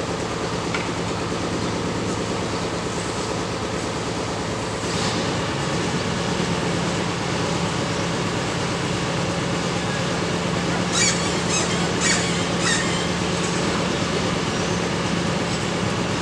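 Steady mechanical rumble of a vehicle in motion with a low hum. It grows louder about five seconds in, and a few sharp clicks and squeals come about eleven to thirteen seconds in.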